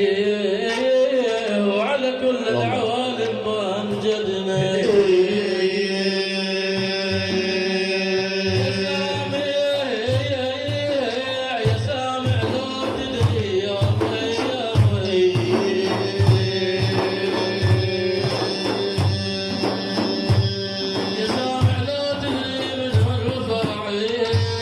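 Devotional music: a sustained, wavering melodic line over a steady hand-drum rhythm.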